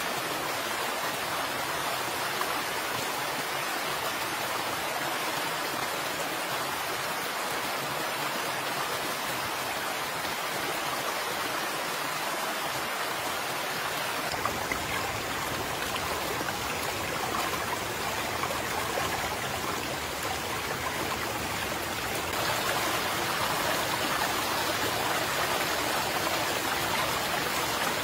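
Shallow jungle stream running over rocks: a steady rush and trickle of water, somewhat louder in the last few seconds.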